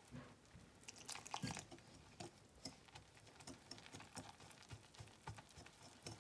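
Faint, irregular light scratches and ticks of a wire whisk stirring dry flour in a bowl.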